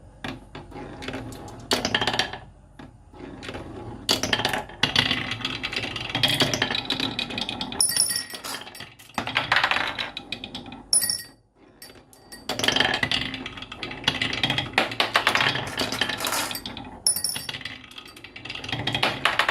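Marbles rolling and clattering down wooden marble-run tracks: a dense, rattling run of clicks that pauses briefly a few times. A few bright ringing clinks come about 8, 11 and 17 seconds in.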